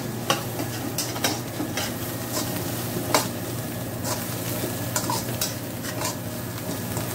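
Pounded spice paste sizzling in hot oil in a stainless-steel wok while a slotted metal spatula stirs it, scraping and clinking against the wok at irregular intervals. The paste is being sautéed until golden brown.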